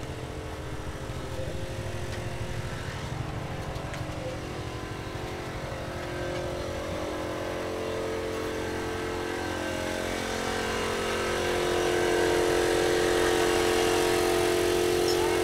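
Street noise with the steady hum of a small engine running at an unchanging speed, growing louder over the second half.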